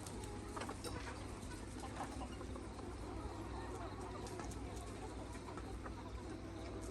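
Free-range Mía chickens, mostly hens, clucking softly now and then, over a steady low rumble.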